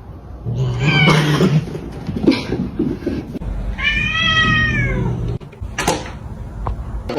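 A cat meowing twice, the second a long drawn-out meow that rises and falls, followed by a sharp click near the end.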